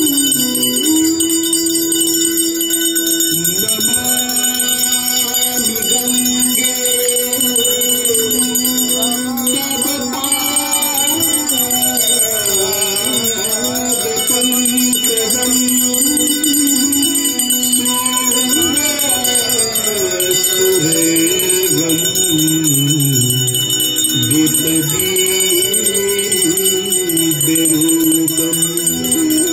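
Brass hand bells ringing continuously, a dense shimmer of bell tones, over devotional aarti music with a slowly wandering melody.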